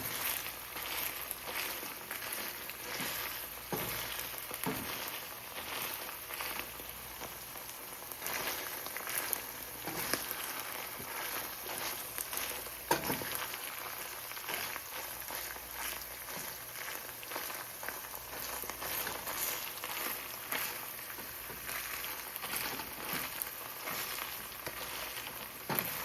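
Egg-white, mushroom and salsa scramble frying in olive oil in a pan, sizzling steadily with scattered small pops and one louder pop about halfway through, as the extra oil cooks off.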